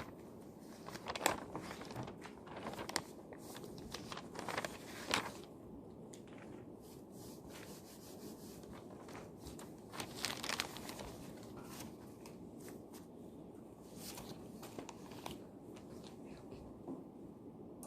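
Paper rustling and handling, with scattered small desk sounds, over a steady low room hum. The rustles come in clusters in the first five seconds and again around ten seconds in.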